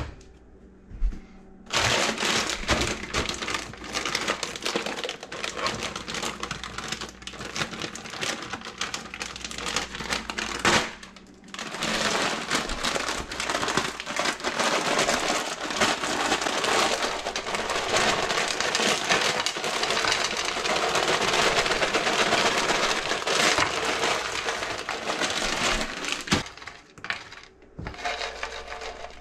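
Dense crackling and crinkling as a plastic bag of frozen diced potatoes is handled and emptied into a hot oiled frying pan, with a brief break about 11 seconds in; the noise thins out and turns patchy near the end.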